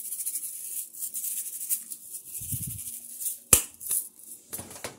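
Seasoning shaker shaken over steaks in a pan, a rapid gritty rattle for the first couple of seconds, followed by a few sharp clicks, the loudest about three and a half seconds in.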